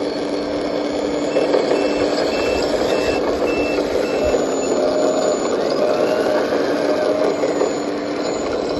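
Caterpillar D11 bulldozer's diesel engine running with a steady drone, while a reversing alarm beeps about twice a second for about three seconds, starting about a second in.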